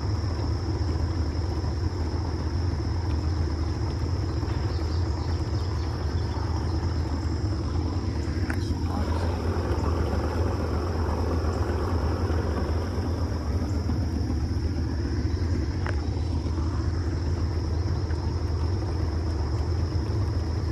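Steady insect chorus of crickets or cicadas, a thin unbroken high drone, over a steady low rumble.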